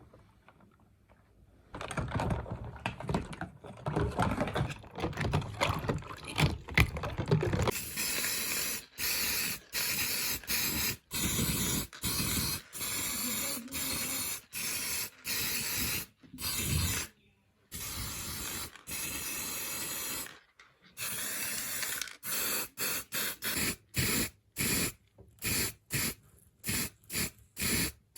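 Hissing spray in repeated bursts, growing shorter and quicker near the end, with scraping and handling noises in the first several seconds.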